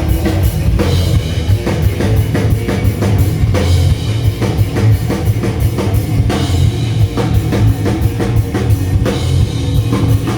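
Rock band playing live at a sound check: a drum kit beating steadily under bass and electric guitar, with no singing.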